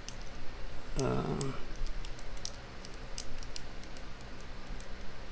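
Faint, irregular metallic clicks of a lock pick working the pins of a lock under tension. A brief low voiced sound, a murmur or whine, comes about a second in.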